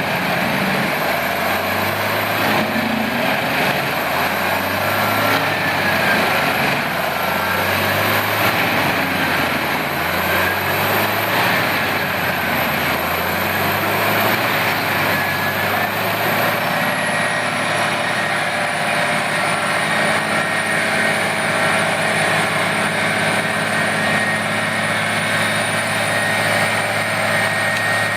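Heavy wood-processing machine's engine running steadily under load, with a high whine that drops in pitch about two-thirds of the way through.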